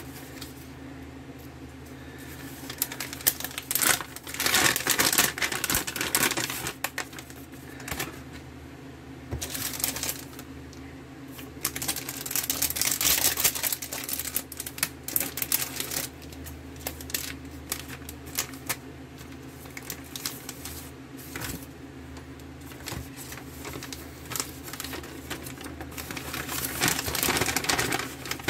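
Plastic and foil packaging crinkling in irregular bursts as an MRE's main-course pouch and its flameless ration heater bag are handled.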